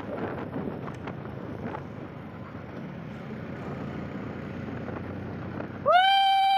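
Motorcycles running along with wind noise on the microphone. About six seconds in, a rider lets out a loud, high whoop that rises and then holds for under a second.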